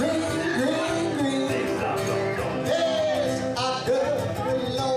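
Live band music in a country-bluegrass style, with fiddle and acoustic guitar playing steadily and a singing or voice-like line weaving over it.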